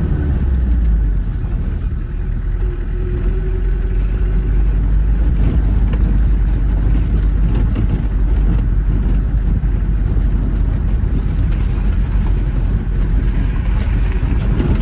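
Steady low rumble of a vehicle driving slowly on a gravel track, heard from inside the cabin: engine and tyre noise with the grainy crunch of gravel under the wheels.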